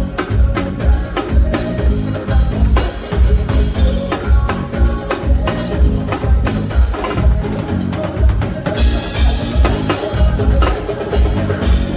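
Live band playing through a PA, with a drum kit keeping a steady kick-drum beat under a moving bass line.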